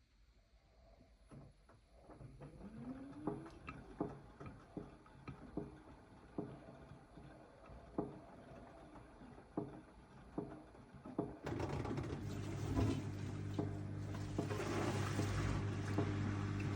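AEG 8000 washing machine drum turning slowly with a repeated knock, one roughly every half-second to second, a fault whose cause is unknown and which is not the detergent drawer. About eleven seconds in, a louder steady machine hum with a rushing noise starts abruptly.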